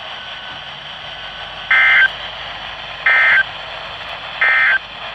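NOAA Weather Radio SAME end-of-message data bursts: three identical short, buzzy digital bursts about 1.4 s apart, over steady radio hiss. They mark the end of the warning message just read.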